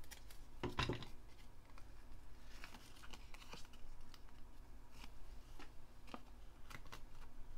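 Paper and card being handled by hand on a desk: faint rustles and light taps, the loudest about a second in.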